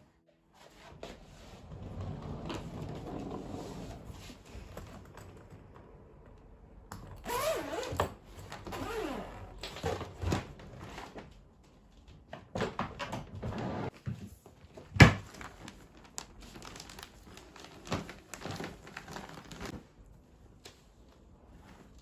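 Household handling sounds: objects being moved, scraped and set down, with rustling and a few short squeaks, and one sharp knock about fifteen seconds in.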